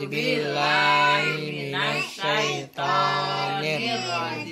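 A group of people, men's and women's voices together, singing unaccompanied in long held notes, with two short breaks about two and a half seconds in.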